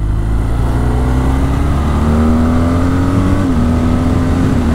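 BMW R12 nineT's 1,170 cc boxer twin pulling under acceleration, its pitch rising slowly, with a brief dip about three and a half seconds in. It runs smoothly as it pulls.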